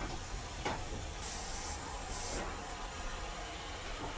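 Southern Railway Q1 0-6-0 goods steam locomotive moving slowly, with a steady rumble and two short, high hisses of steam escaping around the cylinders, about a second in and again about a second later. A couple of faint knocks come near the start.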